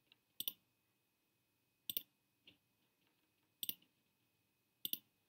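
Four computer mouse clicks, roughly a second and a half apart, each a quick double snap of press and release, with near silence between them.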